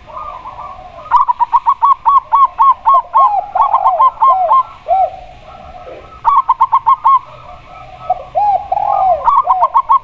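Zebra dove and spotted dove cooing. Rapid runs of short, arched, high coos about four to five a second come in three bouts: about a second in, around six seconds and near the end. Lower, longer coos overlap the runs.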